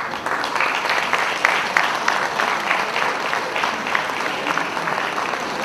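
Audience applause from many people clapping. It breaks out suddenly and goes on steadily.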